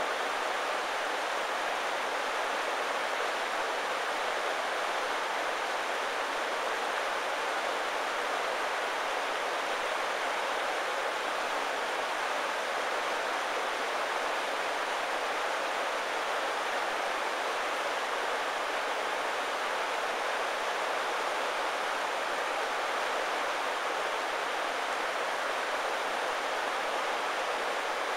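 Fast-flowing river rushing steadily over rocks and small rapids, a constant even roar of water.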